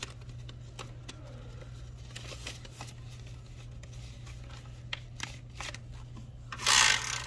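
Dollar bills and plastic binder envelope pages rustling and clicking as cash is handled, then about six and a half seconds in a brief loud rattle as a small plastic number spinner wheel is spun.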